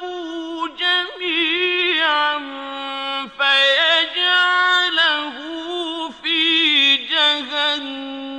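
A man's voice reciting the Quran in melodic chant: long held notes with wavering, ornamented turns, split into several phrases by brief breaks.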